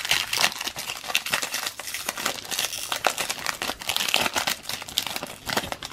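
Foil wrapper of a Topps Chrome Update baseball card pack being torn open and crinkled by hand: a dense, continuous crackling that stops at the very end.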